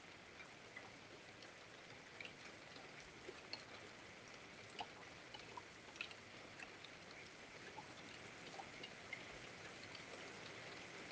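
Faint light rain: a soft steady hiss with scattered drops ticking at irregular moments, heard through a Nest outdoor security camera's microphone.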